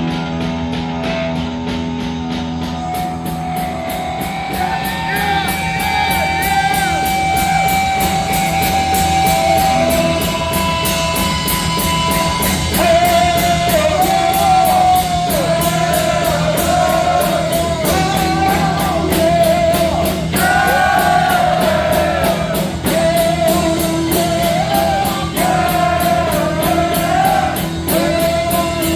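Heavy metal band playing live with distorted guitars, bass and drums under a sustained, wavering lead melody. Fast, even cymbal strokes come in about three seconds in.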